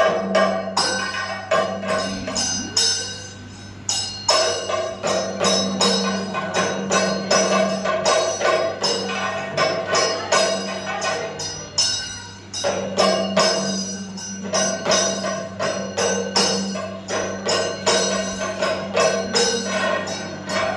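Percussion music: fast, dense metallic strikes with ringing tones over a steady low hum.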